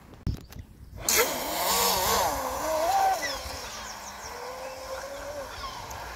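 A knock, then about a second in a radio-controlled model boat's motor starts up at high speed, a whine that rises and falls in pitch with the throttle. It is loudest for the first couple of seconds, then runs steadier and a little softer.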